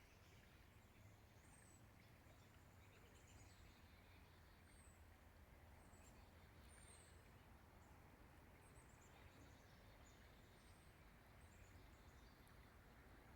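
Faint, high-pitched chirps of small birds, short scattered notes coming every second or so, over a steady low rumble.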